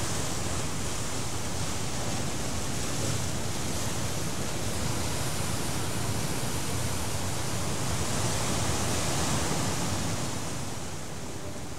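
A steady rushing noise, like surf, swells in at the start and eases down near the end.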